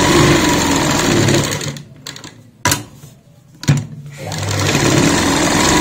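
Sewing machine running as it stitches through fabric in two runs. It stops after about two seconds and starts again about four seconds in, with two sharp clicks in the pause between.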